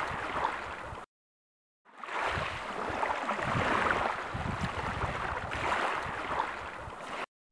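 Sea waves washing onto a shore, a steady rushing hiss of surf. It cuts out completely for about a second near the start, then comes back.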